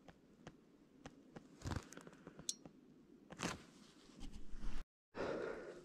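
Faint scattered ticks and a few short crunching rustles of snow and clothing as someone shifts while handling an ice-fishing rod at a hole in the ice. The sound cuts out for a moment near the end.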